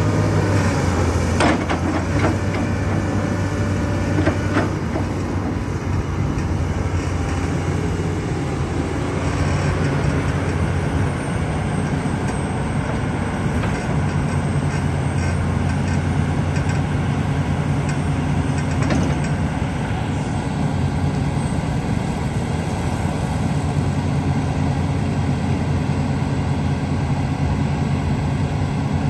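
2013 Komatsu PC360LC-10 excavator's six-cylinder diesel engine running steadily as the upper structure swings round and the boom is lowered and stretched out, with a few short knocks in the first five seconds.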